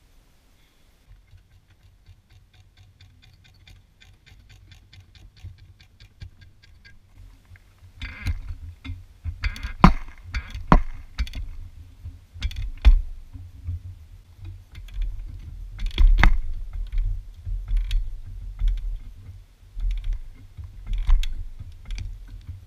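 A run of even ticks for several seconds, then the stump's roots cracking and snapping as it is levered up out of the ground, with several sharp cracks and a low rumble underneath.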